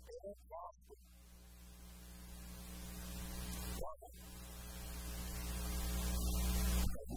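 Electrical mains hum and hiss in the recording's sound system, swelling steadily louder for about six seconds and then cutting off suddenly near the end. It is broken by a couple of brief snatches of a man's voice, near the start and about four seconds in.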